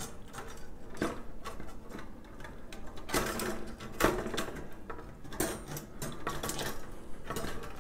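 Chrome-plated steel wire dish rack parts clinking and rattling lightly as the top tier is lined up and pressed onto the base, with scattered small clicks, the sharpest about one, three and four seconds in.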